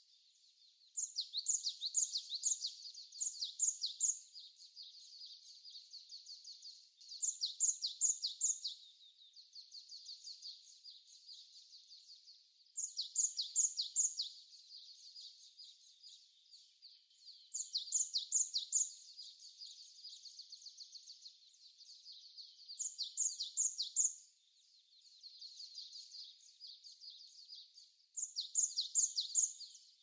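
Japanese tit (박새) singing: bursts of loud, rapid chirping notes about every five seconds, with fainter, continuous twittering in between.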